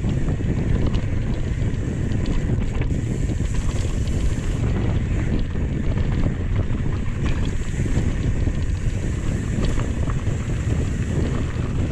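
Wind buffeting the microphone of a mountain bike riding down a dirt-and-gravel trail. Under it, the tyres crunch over loose stones and the bike rattles, with many small ticks and clicks.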